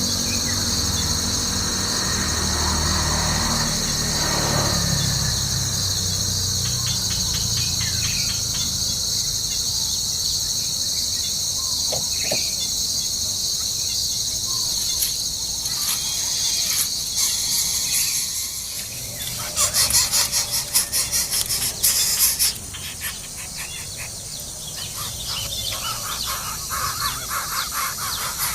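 Steady, high-pitched drone of an insect chorus. About twenty seconds in comes a loud burst of rapid, high animal calls lasting around three seconds.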